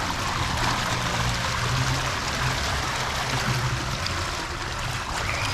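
Steady rush of running water from a water-park slide and its splash pool.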